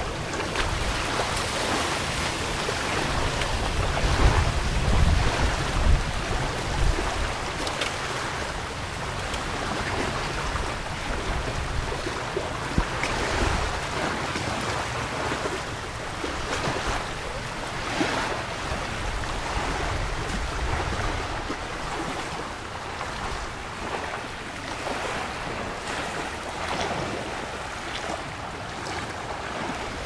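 Wind and small waves washing against the shore, a steady rushing noise, with stronger gusts rumbling on the microphone a few seconds in.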